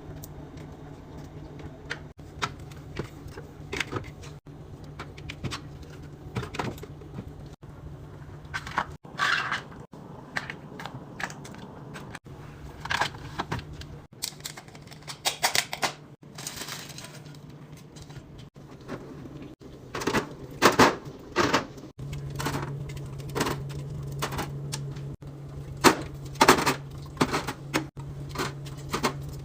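Plastic containers, bottles and bins being set down and slid into a refrigerator, a run of clicks, knocks and clatters as the fridge is restocked, over a steady low hum that drops out for a while and returns about two-thirds of the way in.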